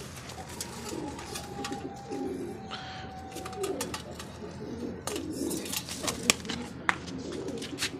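Domestic pigeons cooing over and over, with scattered sharp clicks.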